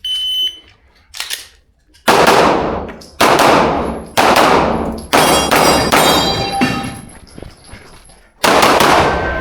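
A shot timer's start beep, then a 9 mm Glock 17 Gen5 pistol fired about six times at roughly one-second intervals, with a longer gap near the end. Each shot is a sharp crack with a fading tail, and thin ringing tones follow some of them.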